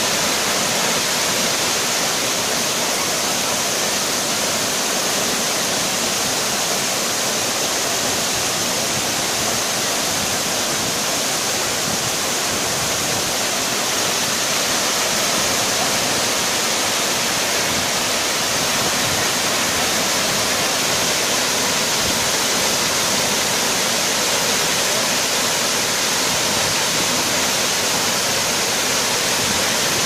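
Waterfall pouring down a layered rock face into a pool: a steady, loud rush of falling water that holds constant throughout.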